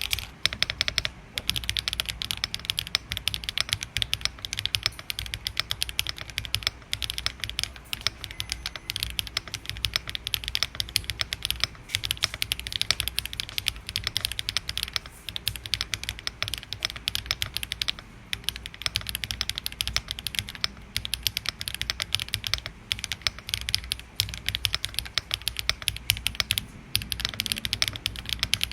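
Fast, continuous typing on a Weikav Nut65 mechanical keyboard built with a 1.6 mm PCB and PBT double-shot keycaps: a dense run of sharp, clacky keystrokes. The closed case seals the sound chamber, making it a little fuller and slightly quieter.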